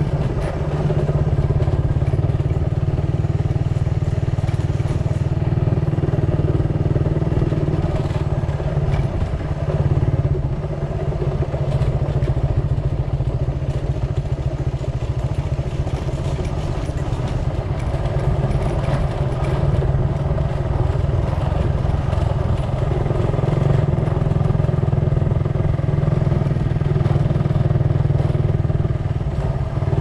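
An engine running at a steady speed, a low hum that dips briefly about a third of the way in.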